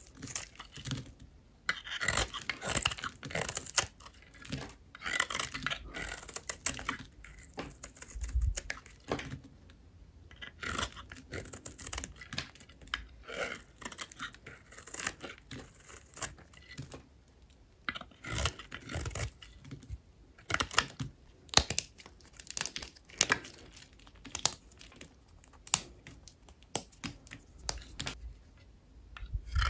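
Dry bar soap being cut with a blade: a long run of crisp, irregular crunching and crackling as the brittle soap splits and flakes, broken by short pauses between cuts.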